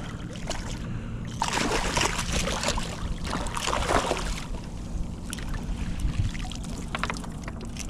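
A hooked speckled trout thrashing and splashing at the water surface beside a kayak as it is scooped into a landing net, the splashing heaviest from about one and a half to four and a half seconds in. Lighter sloshing and a few small knocks follow once the fish is in the net.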